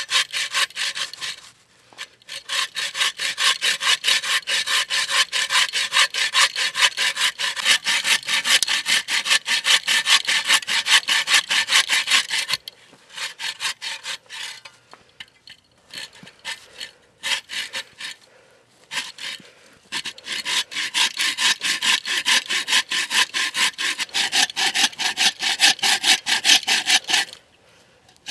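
Coghlan's bow saw crosscutting a log: fast, rhythmic back-and-forth rasping strokes of the blade through the wood, with a few short pauses between runs.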